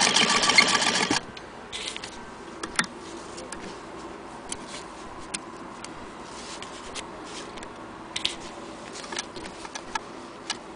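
Hand-cranked Singer 28K vibrating-shuttle sewing machine stitching with a fast, even clatter that stops about a second in. Then scattered light clicks and rustling of fabric being handled at the machine.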